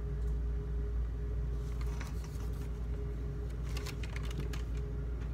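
Small clicks and taps of a porcelain plate being handled, in two short clusters, over a steady low hum.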